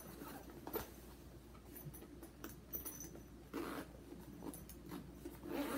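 Zipper on a fabric garment bag's pocket being worked, amid faint handling rustle of the bag's fabric. There are scattered small clicks, and a longer rasp comes about three and a half seconds in.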